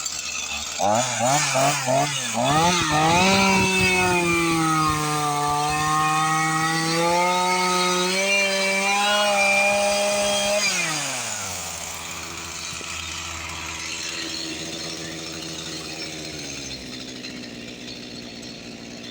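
Gas chainsaw blipped a few times, then revved up and held at high speed for about seven seconds. It drops back to a low idle about eleven seconds in and idles to the end.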